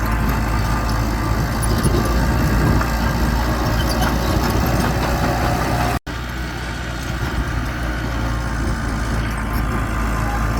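Diesel engine of heavy earthmoving machinery running steadily, with a momentary cut to silence about six seconds in.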